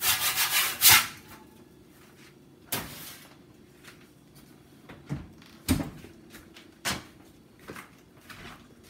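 Metal pizza peel scraping across the pizza stone as it slides under a baked pizza, for about the first second. Then several separate sharp clunks and knocks as the pizza is lifted out and set on the glass cooktop.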